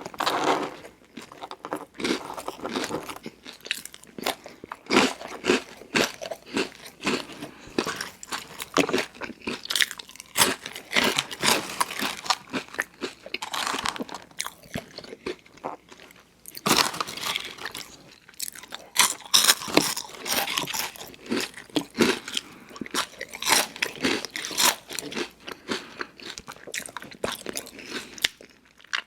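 Close-miked eating of fast food: crunchy bites and chewing, one after another, with a short pause about midway.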